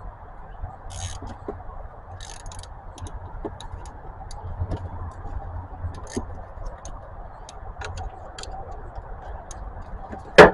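Scattered light metallic clicks and clinks of hand tools working on a car battery's positive terminal clamp, with one loud sharp clank near the end.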